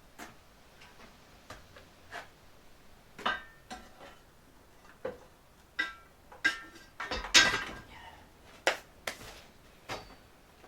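Scattered knocks and clinks of hard objects being picked up and set down, some ringing briefly like metal, with a louder clatter about seven seconds in.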